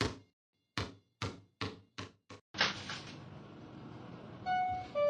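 A run of six sharp knocks coming faster and faster, then a louder bang followed by a lingering rumble, and a short high-pitched tone near the end.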